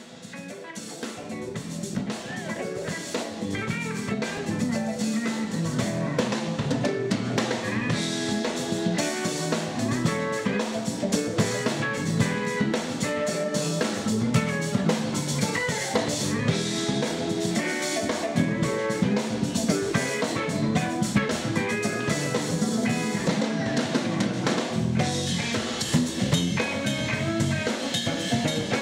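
Live band playing: drum kit with rimshots, electric guitars and keyboard, fading in over the first few seconds.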